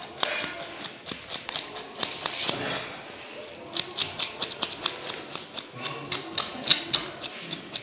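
Knife scraping the scales off a fresh fish on a wooden chopping block: a rapid run of sharp clicks and ticks, several a second.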